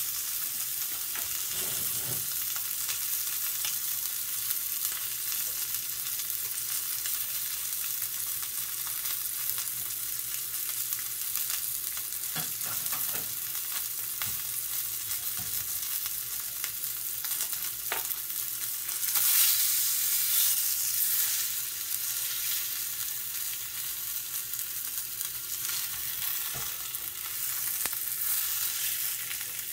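Dry-aged ribeye sizzling in hot fat in a cast iron skillet: a steady high hiss with occasional spitting pops, louder for a couple of seconds past the middle.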